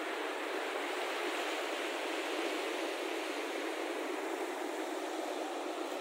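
Steady rushing of a fast-flowing mountain river, an even wash of noise with no breaks.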